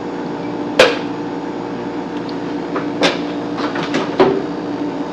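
An electric oven's door and rack clattering as a glass baking dish goes in: a sharp knock about a second in, then a quick run of clanks and knocks around three to four seconds in, over a steady hum.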